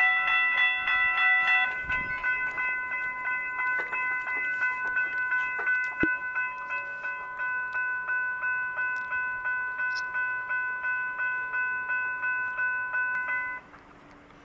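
Railroad crossing warning bells ringing in a rapid, even rhythm. Two bells sound together for the first couple of seconds, then one carries on alone until it cuts off shortly before the end.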